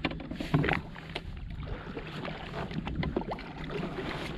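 Sea water slapping against a jet ski's hull, with scattered knocks and splashes, the loudest about half a second in, over a steady low rumble.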